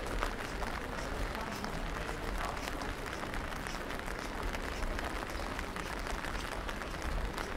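Steady rain falling, an even hiss made of many small ticks of drops.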